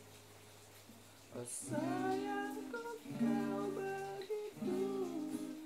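Acoustic guitar strumming chords: one chord rings out and fades, then fresh strums come about a second and a half in and twice more. A wordless voice hums a gliding melody over them.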